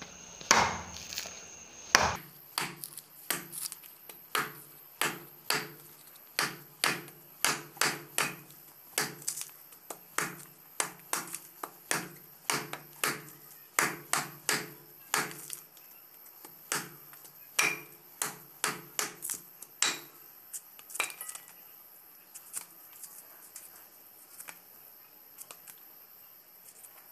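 Curved sickle-like knife chopping into whole palmyra palm fruits (nungu) on a wooden block: a steady run of sharp chops, about two a second, which thins out and stops about 20 seconds in.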